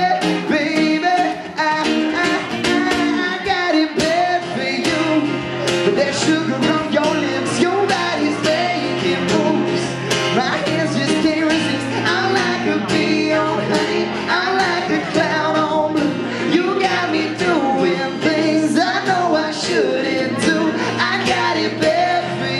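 Live acoustic duo playing an up-tempo, funky country song: a male lead vocal with a second male voice singing along over strummed acoustic guitar. A low bass line comes in about four seconds in.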